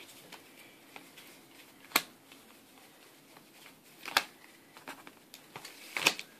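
Sleeved Yu-Gi-Oh! cards being handled and set down on a rubber playmat: a few sharp card taps, the loudest about two seconds in, then more around four and six seconds in.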